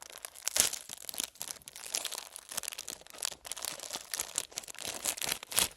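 Plastic wrapper of a mini ice cream bar being torn open and crinkled by hand: a busy, irregular run of crackles and rustles.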